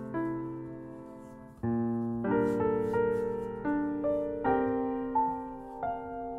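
Background piano music: slow sustained chords and notes, each struck and left to fade.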